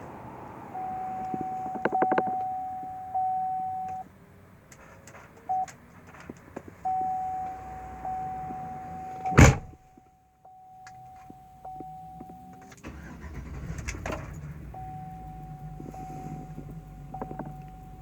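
2005 Chevy Silverado's in-cab warning chime sounding as a steady tone, a single loud door slam about halfway through, then the engine catching a few seconds later and idling steadily while the chime goes on. The truck starts only after the driver's door has been opened and closed.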